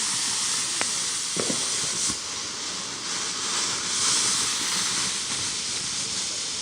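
Two fireworks burning at once with a steady hiss of spraying sparks, with a couple of faint pops about one and one and a half seconds in.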